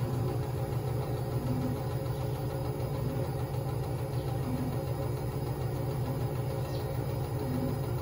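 Samsung front-load washing machine running in its main wash: a steady low motor hum, with a faint soft note repeating about every one and a half seconds.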